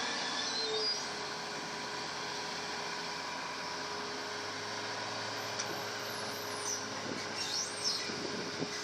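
Excavator's diesel engine running steadily under load while dredging, a low-powered machine with a somewhat rough, strained sound. A few brief high squeaks come in the second half.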